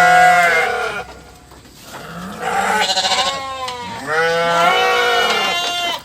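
Bleating livestock: three long bleats, one about a second long at the start, then two longer ones from about two seconds in, the middle one quavering.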